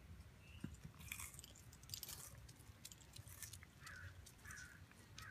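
Faint, irregular crunching as a sulcata tortoise bites into and chews raw baby carrots. In the second half, three short higher-pitched sounds come about half a second apart.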